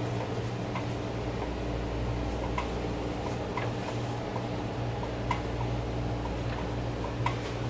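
Quiet steady electrical hum with a few faint, irregular ticks.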